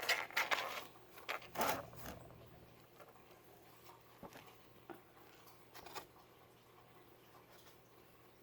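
A cat scrabbling and scratching in a box: a burst of scratchy rustles in the first two seconds, then a few faint taps.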